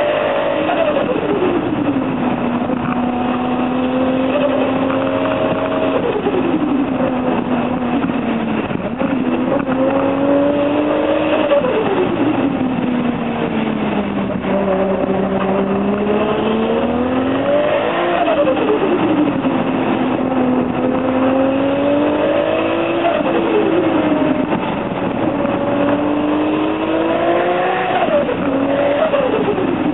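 Single-turbo (T04Z) Toyota Supra 2JZ-GTE straight-six being driven hard, the engine note climbing steadily in pitch and then dropping sharply several times as it is worked up and down through the revs.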